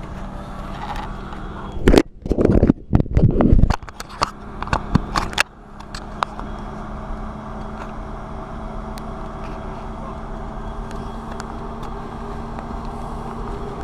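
4x4's engine running steadily at crawling speed. About two seconds in there are some three seconds of loud, irregular knocks and rustling, after which the steady running goes on alone.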